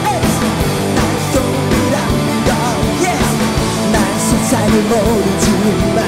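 Rock band playing live, loud and dense: drums, bass and electric guitars, with some bending lead notes.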